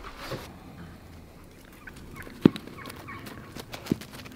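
Farm fowl calling, with two dull thumps: a loud one about two and a half seconds in and a smaller one near the end.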